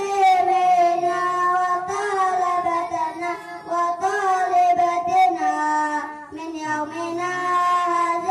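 A child singing into a microphone, holding long drawn-out notes that slide gently between pitches.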